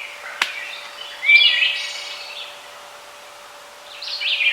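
Songbirds singing: one quick phrase of song about a second in and another starting near the end. There is a single sharp click just before the first phrase, and a faint steady hum underneath.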